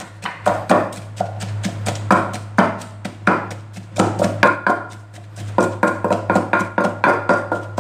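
Wooden pestle pounding flaked mackerel, shallots and chilies in a clay mortar: a steady run of dull strikes, about three to four a second. Background music plays underneath.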